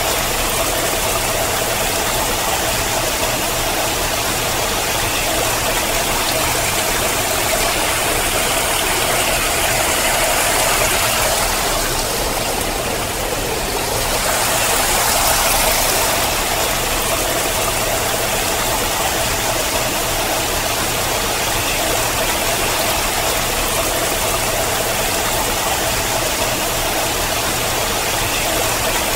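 Water pouring and splashing down a rock face, a steady rush of noise that swells slightly about halfway through.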